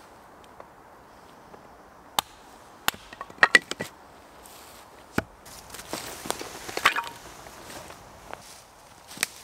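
Hatchet splitting firewood into smaller pieces on a stump: a series of sharp, irregularly spaced chops and wood cracks, the loudest bunched together about three and a half seconds in. A rustling, clattering stretch follows around six to seven seconds in, and there is one more sharp chop near the end.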